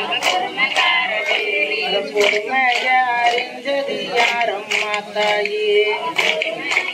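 A Tamil folk song for a circle clapping dance (kummi), sung with a wavering melody, over sharp hand claps about every half second.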